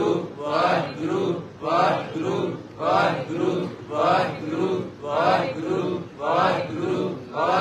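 Voices chanting a short phrase in unison over and over, in a steady rhythm of about one repeat a second, as in Sikh simran.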